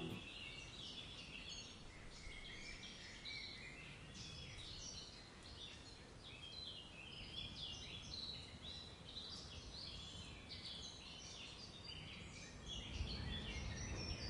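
Many birds chirping and chattering in quick, short, overlapping calls, faint against outdoor background noise. A low rumble rises near the end.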